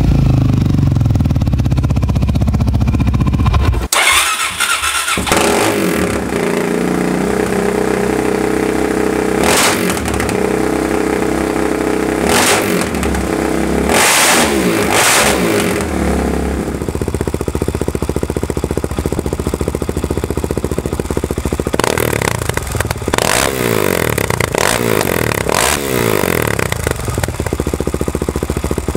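Suzuki DR-Z400's single-cylinder four-stroke engine through aftermarket slip-on mufflers: a Yoshimura RS-4 for the first few seconds, then a Two Brothers muffler after a sudden change about four seconds in. The engine idles and is revved in several short, sharp throttle blips.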